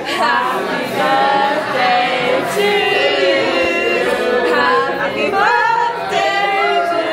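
Several people singing together without accompaniment, holding and bending sung notes in phrases.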